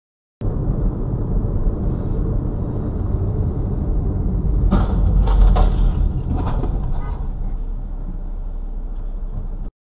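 Dashcam in-car audio of a car driving in city traffic: a steady low road and engine rumble, with a few brief knocks or rattles about five and seven seconds in. The sound starts abruptly less than a second in and cuts off just before the end.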